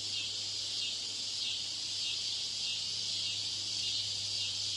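A steady high-pitched hiss with a low hum underneath. This is the noise layer deliberately added to a TOEIC listening-test recording to imitate a poor exam-room broadcast system.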